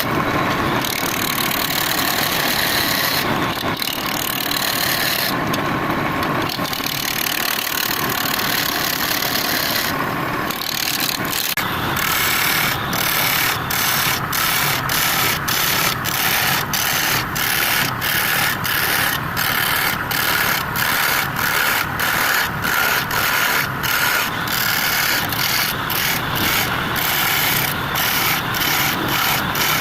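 Woodturning lathe running with something rubbing against the spinning wood. From about twelve seconds in, the rubbing comes in even back-and-forth strokes, about one and a half a second.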